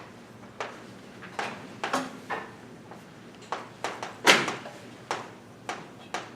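Irregular sharp taps and knocks of chalk striking a blackboard as an equation is written, about a dozen in all. The loudest comes about four seconds in.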